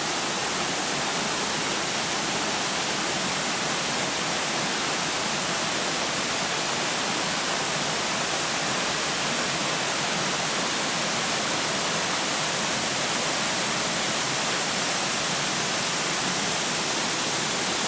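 Waterfall on a mountain creek, a steady full rush of falling water close by.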